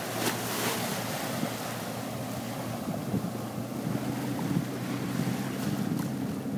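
Small waves washing up on a sandy shore, with wind buffeting the microphone and a few brief splashes or gusts. Underneath, the faint steady drone of a landing craft's twin 150 hp Yamaha four-stroke outboards running at speed as it heads away.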